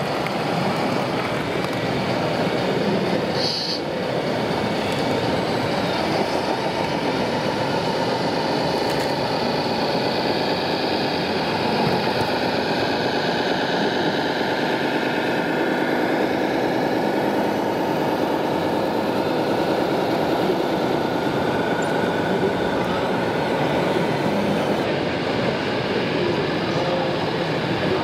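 Steady mechanical running noise of 1:16 scale radio-controlled model trucks and construction machines, a dense rumble with a faint whine that comes and goes.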